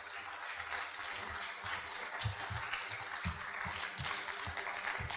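An audience applauding: dense, steady clapping from a hall full of people, with scattered low thuds beneath it.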